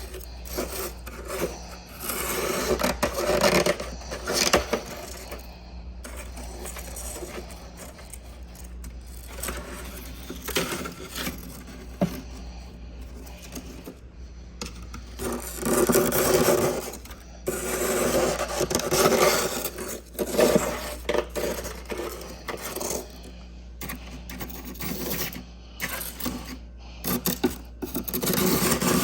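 Close-up crunching of freezer frost being bitten and chewed, in repeated bouts of a second or more with quieter pauses between, over a steady low hum.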